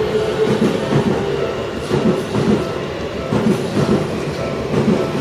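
Seibu Shinjuku Line electric commuter train passing close by over a level crossing, its wheels clacking over the rail joints in a running rhythm.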